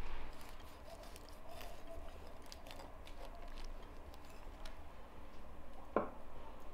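A knife cutting into a baked pineapple shell, heard as faint crackling and clicks, with one sharp knock near the end.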